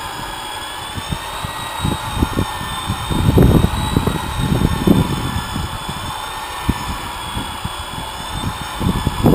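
Electric rotary polisher running with a steady whine, its foam pad buffing wax into a boat's painted hull; the pitch wavers slightly, with dull low bumps around the middle.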